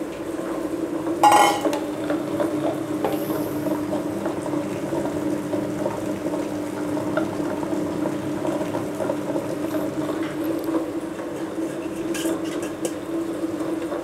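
Small table-top wet grinder running: its two stone rollers turn in the steel drum, grinding cooked horse gram into a coarse chutney paste, with a steady motor hum and the rattle and scrape of stone on steel. A brief clatter about a second in.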